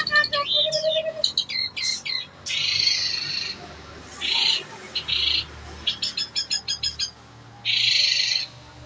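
Long-tailed shrike (cendet) singing in full voice. About four harsh rasping bursts are broken by quick runs of short chattering notes, the mix of rasps and mimicked phrases that songbird keepers call a full isian.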